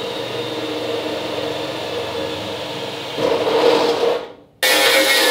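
A steady mechanical whir, like a small motor running. It gets louder for about a second near the middle, then fades away, and a different steady sound, probably background music, comes in near the end.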